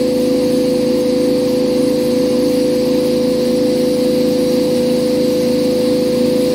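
Steady hum of a motor-driven water pump running at constant speed, with a heavy stream of water from a hose splashing onto a soaked rug.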